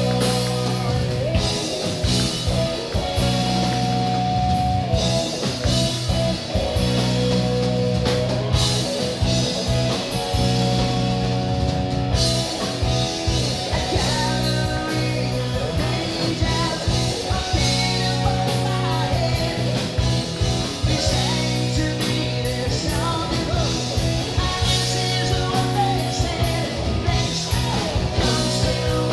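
Live rock band playing through a club PA: electric guitar, bass guitar and drums, with a male singer's lead vocals.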